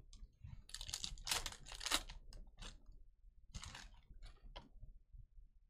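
Crinkling and rustling of a foil trading-card pack wrapper being torn open and handled, in a run of short crackly bursts, busiest about one to two seconds in.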